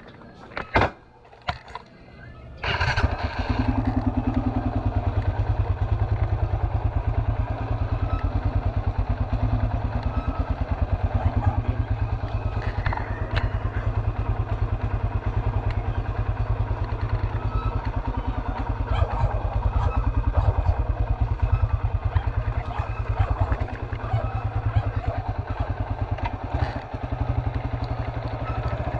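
A few short knocks, then a motorcycle engine starts about three seconds in and runs steadily with a fast, even pulse.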